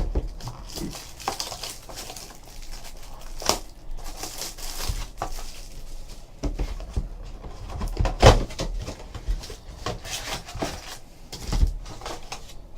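A trading-card hobby box and its packs being opened and handled: scattered rustling and crinkling of packaging with short knocks of cardboard, a few louder ones.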